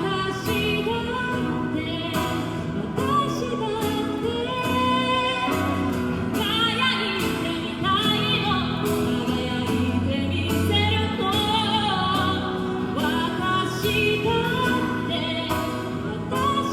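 A singer singing a pop song live over full band accompaniment with a steady drum beat, the held notes wavering with vibrato.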